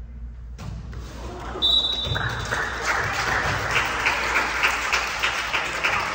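Crowd applauding and cheering, swelling up about half a second in and settling into steady rhythmic clapping of about two to three claps a second. A brief high whistle sounds near the start of the swell.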